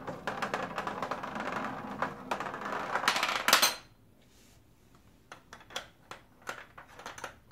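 A gumball rolling down the plastic spiral track of a Roadrunner spiral gumball machine: a rapid clicking rattle that ends with a sharp clack about three and a half seconds in, as it reaches the bottom. Then a few scattered light clicks as the dispensing door at the base is worked, and a sharp clack near the end.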